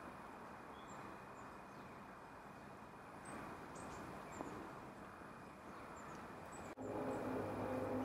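Faint, short, high-pitched calls of small woodland birds, scattered over a steady outdoor hiss. About seven seconds in the sound cuts abruptly and music with held notes begins.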